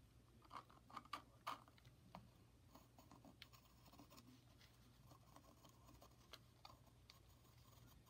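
Faint scratching and small clicks of a drawing compass's pencil lead being drawn around the hard shell of a dried gourd, with a few sharper ticks in the first second and a half.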